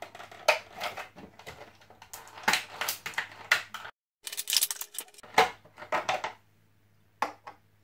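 Clear plastic blister packaging crinkling and crackling as it is handled and pulled open, stopping about six seconds in, followed by a few light clicks near the end.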